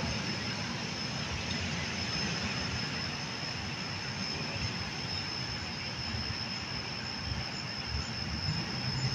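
Steady background noise with no speech: an even hiss with one thin, steady high tone running through it.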